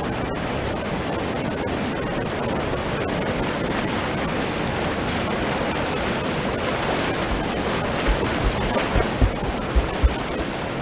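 River rapids rushing steadily in whitewater, heard close to the surface. A few short, dull, low thumps come in the last few seconds.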